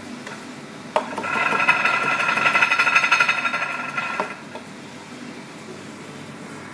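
Kitchen knife chopping herbs on a plastic cutting board in a rapid, even rhythm of strokes, starting with a sharp knock about a second in and stopping after about three seconds.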